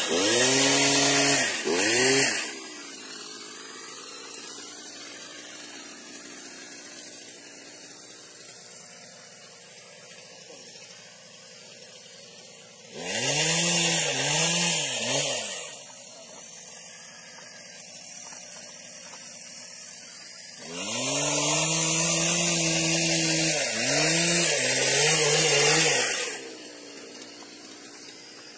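Stihl pole-mounted olive harvester running in three bursts: for about the first two seconds, for two or three seconds around 13 seconds in, and again from about 21 to 26 seconds. Its pitch dips and recovers several times within each burst. It is much quieter in between.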